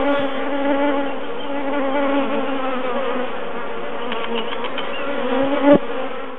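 Honey bees buzzing on the comb: a dense hum of many bees, its pitch wavering. A single sharp knock sounds near the end, and the hum cuts off just after it.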